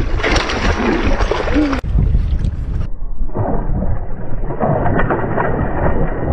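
A large hooked fish thrashing and splashing at the water's surface, over a heavy low rumble of wind on the microphone. The sound turns duller about halfway through.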